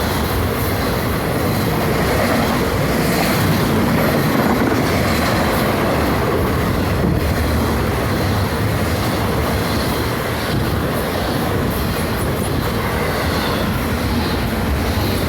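Florida East Coast Railway freight train rolling past at speed: a steady, loud rush of steel wheels on the rails, with faint repeated clacking in it.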